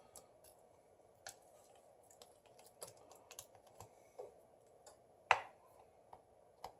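Scattered light clicks and taps of small smartphone parts being handled: cables and the motherboard being worked into the phone's frame, with one louder tap about five seconds in.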